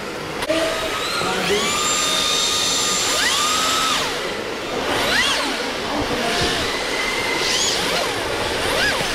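Electric RC drift cars' motors whining, the pitch held for a couple of seconds and then rising and falling quickly again and again with the throttle, over a steady hiss.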